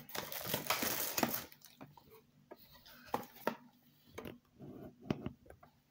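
Cardboard box being opened by hand: the flap scrapes and rustles for about a second and a half, then the box gives off scattered light taps and clicks as it is handled.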